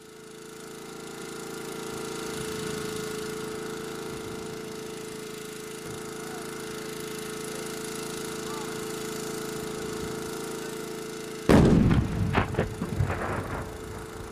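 A steady hum with hiss. About eleven and a half seconds in, a test blast charge detonates with a sudden loud bang, followed by a few sharper cracks over the next two seconds.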